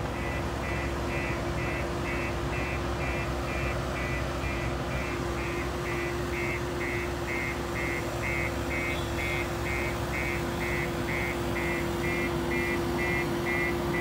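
Reversing alarm on a JCB earthmoving machine beeping evenly, about three beeps a second, over the steady running of diesel engines.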